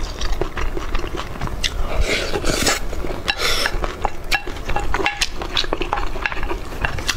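Close-miked eating of spicy braised pork belly with rice: wet chewing and smacking, with many small clicks and clinks of utensils against a bowl.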